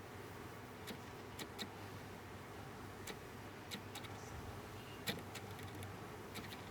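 Faint, irregular clicks and light taps of small parts being handled while circuit cards and connectors are worked on inside a synthesizer, about nine in all, over a low steady hum.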